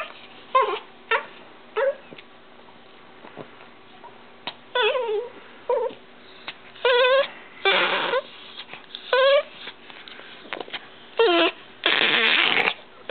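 Yorkshire terrier play-growling and whining while being wrestled: a string of short, wavering whiny grumbles, with two longer, rougher growls a little past the middle and near the end.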